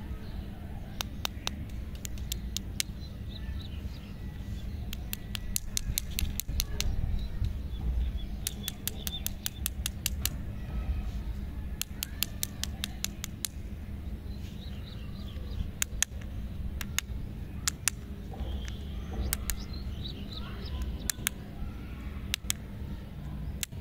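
Handling noise from candy lollipops being picked up and laid down: runs of sharp clicks, several a second in bursts, over a steady low rumble, with faint bird chirps in the background.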